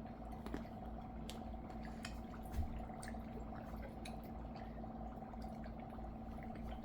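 Dry ice fizzing faintly under grape juice that is freezing on it: scattered small crackles and ticks over a steady low hum, with a soft knock about two and a half seconds in.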